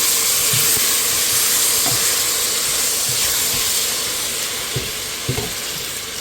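Garlic sizzling in a hot pot as it is stirred, a loud hiss that eases off gradually, with a few light knocks of the utensil near the end.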